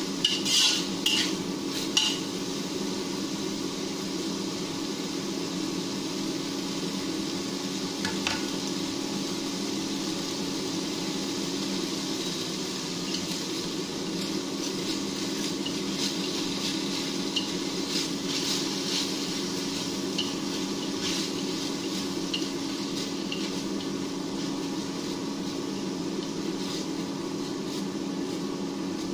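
Sliced green chilies and meat sizzling steadily in a wok on an induction cooktop, over a steady low hum. A metal spatula clanks against the wok a few times in the first two seconds, then chopsticks tap lightly now and then as the food is tossed.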